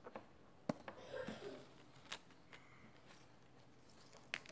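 Faint handling of small collectible cards: a handful of separate light clicks and a brief rustle as the cards are picked up and turned over.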